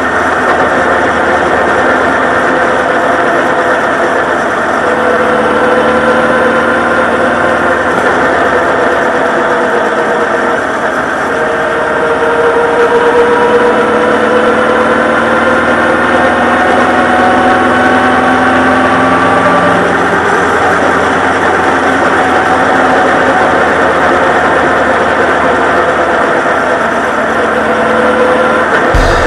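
Honda CB1300 Super Bol d'Or's inline-four engine running as the bike is ridden, its pitch climbing slowly over several seconds and then dropping back, more than once, over a steady rush of wind and road noise.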